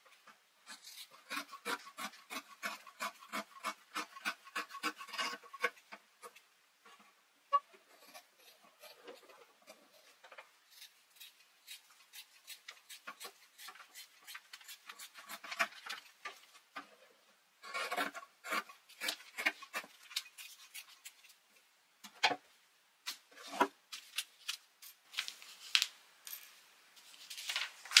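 Scissors cutting through a stack of several layers of muslin: runs of quick snips, several a second, broken by short pauses.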